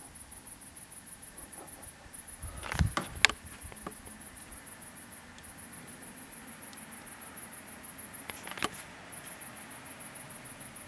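Night insects chirping in a fast, high-pitched pulsing trill. A low thump with sharp clicks comes about three seconds in, and another click near the end.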